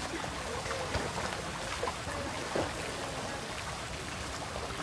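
Outdoor swimming pool ambience: a steady hiss of water, with faint distant voices and a few brief knocks, the loudest about two and a half seconds in.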